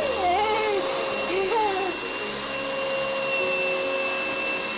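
Vacuum cleaner running steadily with a constant whine. In the first two seconds a child's voice slides up and down in pitch over it.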